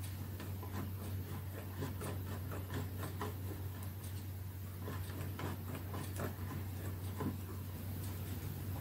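Light, irregular clicks and scratches as the small retaining wedges are pushed and fiddled into place in a Roberts R200 transistor radio's case, over a steady low hum.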